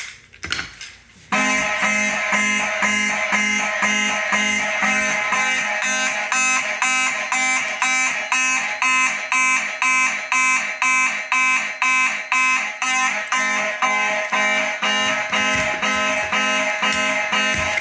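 Fire alarm horns sounding in a pulsed pattern, about two blasts a second. They come on abruptly about a second in, when the system is activated.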